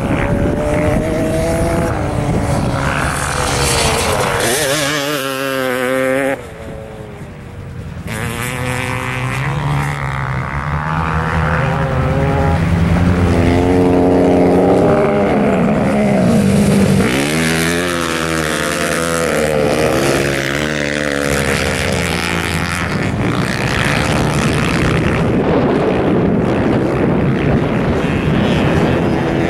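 Several motorcycle engines racing on ice, revving up and down through the turns, their pitch rising and falling as the bikes pass close by and pull away.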